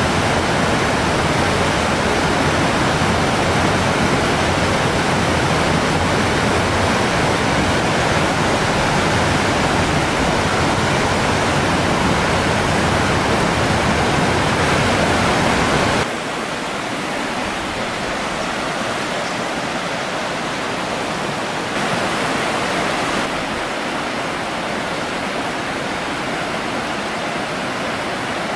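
Fast mountain stream rushing over rocks and a small cascade, a steady rush of water. A little over halfway through it drops suddenly to a softer rush, swelling briefly a few seconds later.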